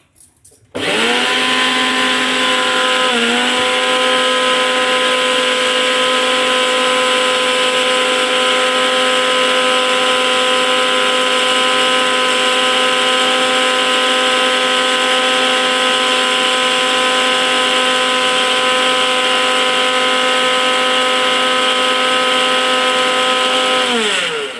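Electric kitchen mixer grinder running, grinding coriander seeds, black pepper and dry ginger into a fine powder. The motor whine starts about a second in, dips briefly a few seconds later, holds steady, and winds down near the end.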